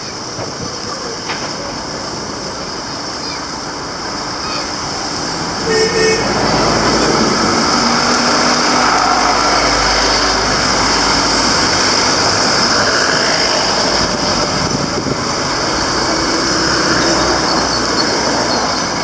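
Road traffic: a vehicle horn toots briefly about six seconds in, then a large vehicle passes close, its engine rumble and road noise rising to a peak around ten seconds and slowly easing off.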